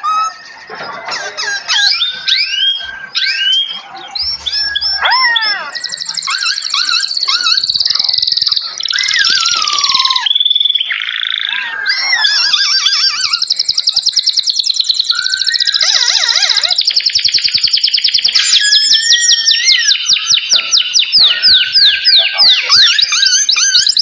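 Several songbirds singing over one another: whistled notes that slide up and down, short chirps and trills. About halfway in it turns into a dense, fast-repeating trill that carries on to the end.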